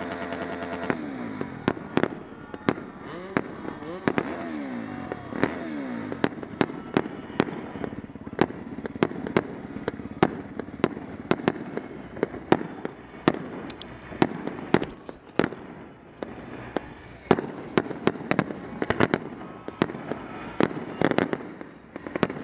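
Quad or motorcycle engines revving up and down in the first few seconds, under many sharp, irregular pops and cracks that continue throughout and are the loudest sounds.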